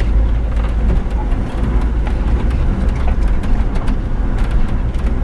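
Off-road vehicle driving slowly over a rough dirt track: a steady low rumble from the engine and tyres, with frequent short knocks and rattles as it bumps over the ruts.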